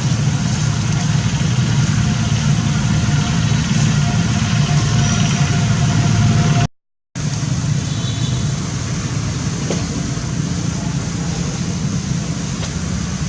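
Steady low rumble of a motor vehicle or road traffic, cut off for about half a second near the middle.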